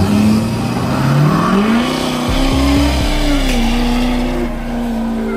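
A motor vehicle's engine revving: the pitch climbs about a second in, holds high, dips slightly around three seconds, then holds steady. It starts and stops suddenly.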